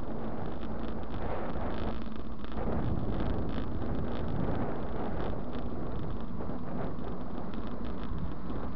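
Steady wind noise and road rumble on a bike-mounted camera's microphone as a mountain bike rides along a tarmac road, with small rattles and jolts scattered through it.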